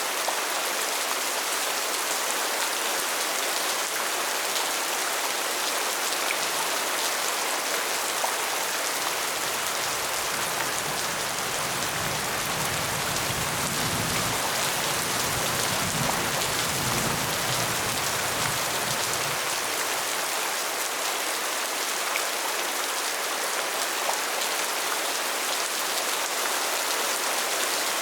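Steady rain, an even, dense hiss of drops. A soft low rumble rises under it for several seconds in the middle, then fades.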